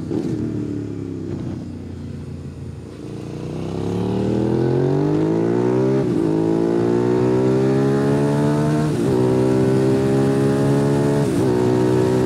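Suzuki SV650's fuel-injected 90-degree V-twin engine winding down for about three seconds as the throttle closes. It then pulls hard under acceleration, its pitch rising through the gears and dropping briefly at each upshift.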